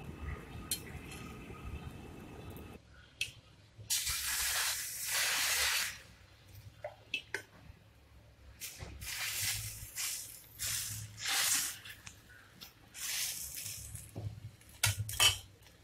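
Food sizzling in a hot oiled pan, coming in several hissing bursts a second or two long, with light clicks and taps in between.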